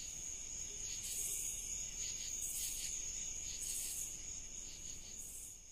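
Steady high-pitched insect trilling, with a higher buzzing pulse repeating about every second and a half, fading out near the end.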